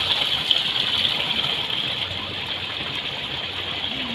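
Steady rush of running water, with a continuous high-pitched insect chorus over it.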